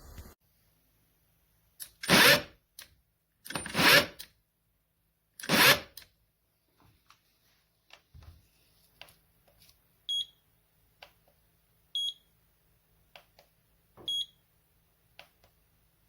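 Three loud, brief rustling or scraping noises, then a short high electronic beep repeating every two seconds, with faint clicks between.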